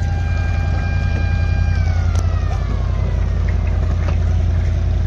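An engine running with a steady low drone, under a high held tone that slides down in pitch about two seconds in.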